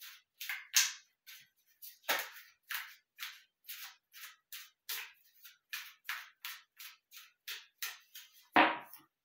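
Tarot cards being shuffled by hand: a run of short card slaps and clicks, about three a second, with one louder tap near the end.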